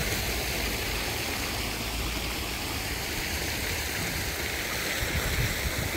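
Steady outdoor background noise: an even hiss with an uneven low rumble, and no distinct events.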